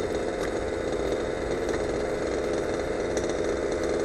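A small engine running steadily at idle.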